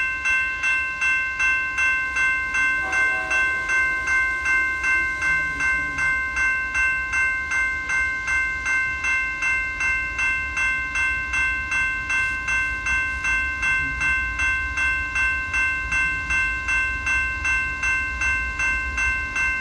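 Railroad grade-crossing warning bell ringing continuously at about two strokes a second while the crossing signals are active. A low rumble grows louder underneath it in the last few seconds.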